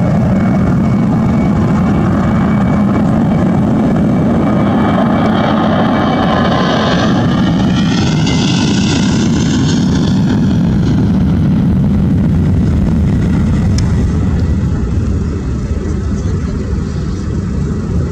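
Boeing 737-800's CFM56-7B turbofans at takeoff power as the airliner rolls down the runway and passes close by. A whine sweeps up and then down in pitch as it goes past, a little before halfway, and the engine noise then eases somewhat as the jet lifts off and climbs away.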